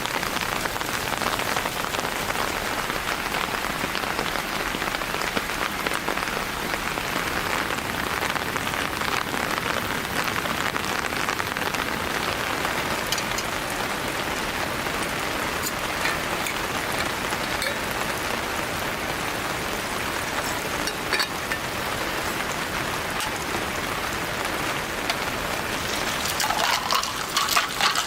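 Steady rain falling, with scattered single drop taps, and a brief flurry of sharper clicks near the end.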